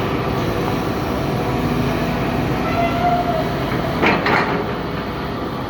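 Excavator running at work, a steady heavy engine rumble with metallic clanking; two sharp clanks stand out about four seconds in.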